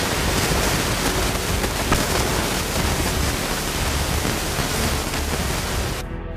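A steady, even rushing noise with no distinct shots or other events, cut off about six seconds in by music.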